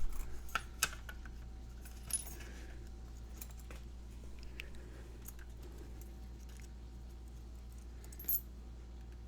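Light metallic clicks and jingling of a Master Lock 220 padlock and its small parts being handled, with a cluster of clicks in the first couple of seconds and one more near the end.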